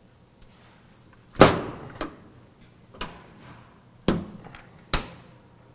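A metal side compartment door on a fire tanker truck shuts with a loud bang about a second and a half in. Four smaller clunks follow, about a second apart, from the door and its latch handle.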